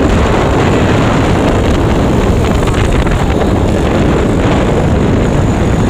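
Honda Megapro single-cylinder four-stroke engine, swapped into a Yamaha Mio scooter, running steadily under way as the scooter is ridden along the road.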